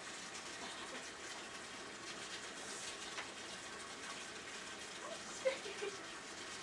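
Bathtub tap running, a steady rush of water filling the tub. About five and a half seconds in comes a brief cluster of short, high vocal squeaks.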